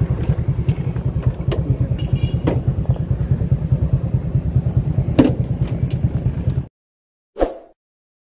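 Small engine running with a rapid, even low throbbing and a few knocks, cut off abruptly about two-thirds of the way in, followed by silence broken by a couple of brief sounds.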